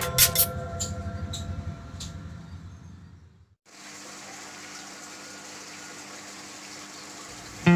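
Intro music dying away over the first three seconds, then after a brief gap a steady rushing of aquarium water with a faint low hum from the tank's pump.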